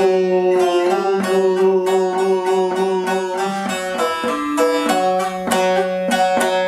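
Bağlama, the long-necked Turkish saz, played with a plectrum: a folk melody in 9/8 picked note by note over strings that keep ringing underneath.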